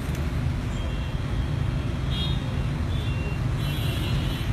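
Steady street traffic noise, a low continuous rumble, with two brief high-pitched tones, one about two seconds in and another near the end.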